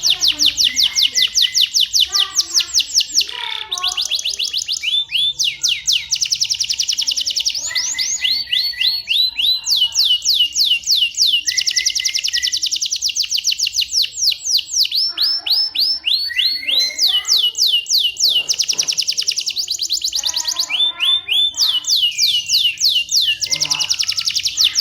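Domestic canary singing a long unbroken song of fast trills, each a rapid run of falling notes, switching from one trill to another every second or two without pausing.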